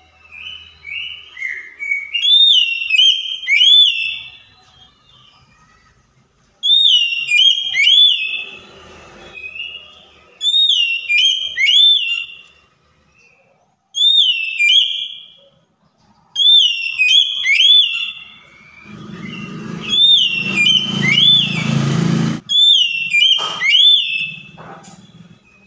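Oriental magpie-robin singing: loud phrases of sweeping whistled notes, a burst every three to four seconds with short gaps between. Near the end, a low rushing noise sounds under the song for a few seconds.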